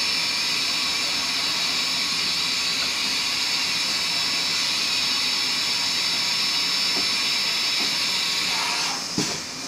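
Steady hiss of compressed air with a thin high tone from a Haas VF-0E CNC vertical machining center during a tool change, ending with a knock near the end.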